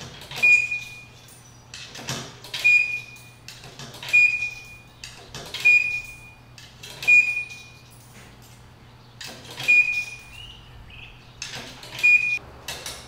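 Payphone being worked by hand: about seven presses, each a sharp click followed by a short high beep, roughly one and a half seconds apart, over a low steady hum.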